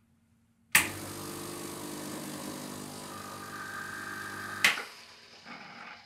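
Gaggia Classic Pro espresso machine pulling a short backflush shot against a blind disc. The brew switch clicks on and the vibratory pump buzzes steadily for about four seconds, its note straining as pressure builds. Then it switches off with a sudden burst of hiss as the three-way solenoid valve vents the pressure and detergent water into the drip tray, fading away over the last second.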